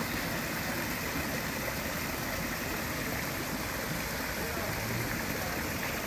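Small garden waterfall spilling over stepped rocks into a pond: a steady rush and splash of falling water.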